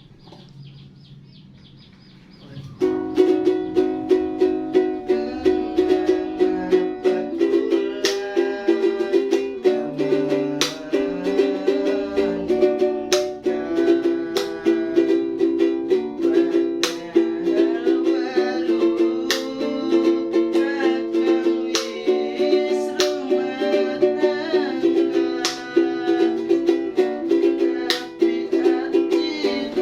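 Music led by a rapidly plucked, ukulele-like small string instrument with a steady beat, starting suddenly about three seconds in after a quiet stretch.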